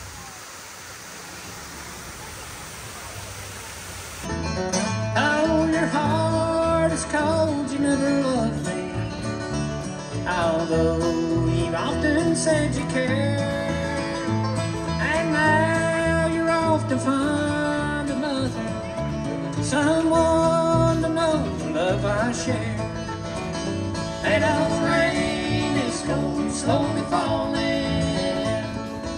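Water splashing steadily down an artificial rock waterfall for about four seconds, then cut to a live bluegrass band playing and singing, with banjo and guitars.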